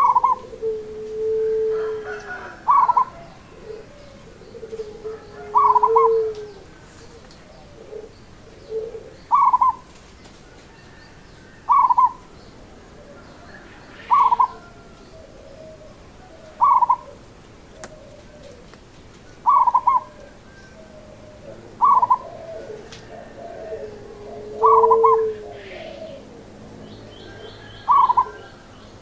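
Zebra dove (perkutut) cooing: a short, stuttering coo repeated about every two and a half seconds, eleven times in all, with a few lower, drawn-out coos between them.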